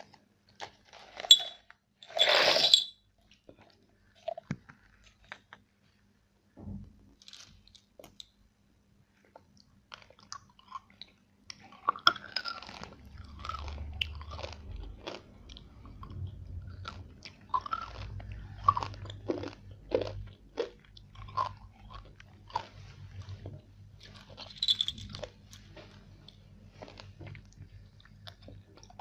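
Close-miked eating of chocolate: a loud crunching bite about two seconds in, then sparse small clicks and, from about twelve seconds in, steady crunchy chewing.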